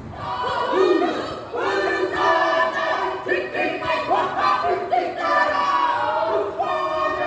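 A group of voices chanting and singing together, with shouted calls: a Māori group performance for Waitangi Day, of the kapa haka kind. It starts suddenly and loud.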